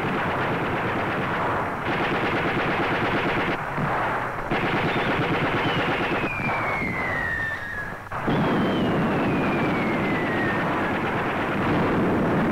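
Battle sound effects on an old film soundtrack: rapid, continuous machine-gun fire. About halfway through come two long falling whistles, one after the other. The sound changes abruptly several times between sections of gunfire.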